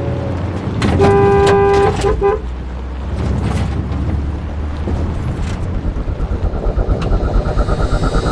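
A vehicle horn sounds one long blast about a second in, then two quick short toots, over the low rumble of a running engine.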